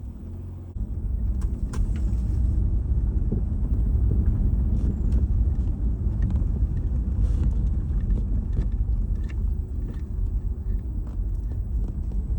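Low, steady rumble of a car on the road, stepping up in loudness a little under a second in, with a few faint clicks.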